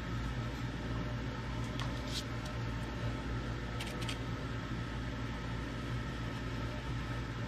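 Steady low mechanical hum with a background hiss, like a fan or motor running, with a few faint ticks about two and four seconds in.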